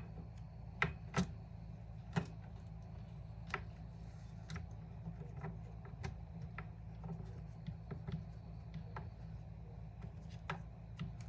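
Scattered light clicks and knocks of hands working a partly dismantled Remington RM4620 chainsaw's throttle parts loose, over a steady low hum.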